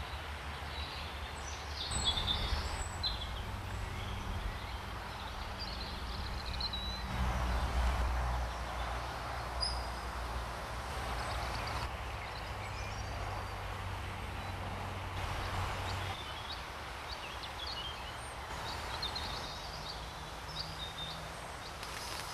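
Outdoor canalside ambience: a steady low rumble with faint bird chirps now and then. The background changes abruptly a few times where separate clips are spliced together.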